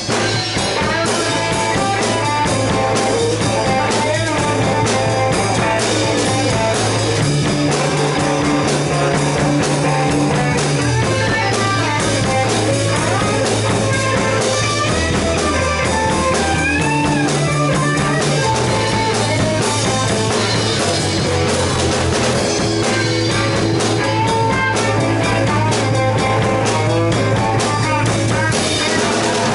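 Live rock band playing: electric guitars, bass and drum kit, with the bass line moving between held notes.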